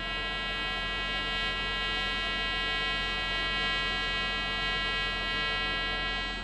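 TIG welding arc on stainless (chrome-nickel) steel, with filler rod fed by hand: a steady electric buzz with many even overtones, which cuts off abruptly at the very end as the arc is stopped.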